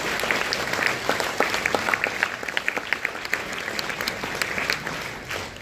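Audience applauding, many hands clapping steadily and dying down near the end.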